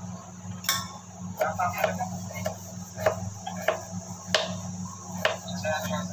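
Small kitchen knife chopping peeled garlic cloves on a cutting board: irregular sharp knocks of the blade on the board, about one to two a second. A steady low hum runs underneath.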